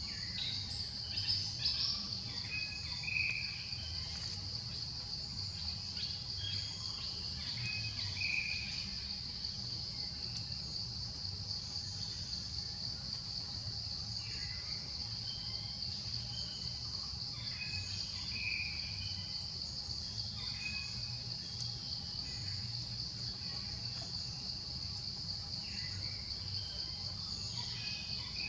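Steady, continuous insect chorus with short bird chirps now and then, over a low steady rumble.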